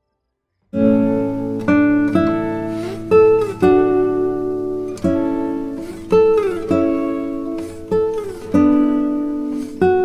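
Background music: a solo acoustic guitar playing plucked notes, some of them sliding in pitch. It comes in after a moment of silence, a little under a second in.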